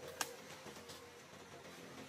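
A single sharp click about a fifth of a second in, followed by a few fainter ticks, over a faint steady hum.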